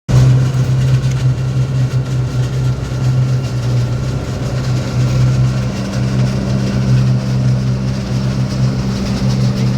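Wirtgen SP 15 slipform paver's diesel engine running steadily, a constant low hum with no change in speed.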